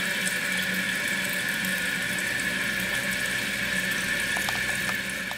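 Kohler toilet tank refilling through its fill valve: a steady hiss of water with a high whistling tone. The tank is filling and holding now that a new flush valve seal is in.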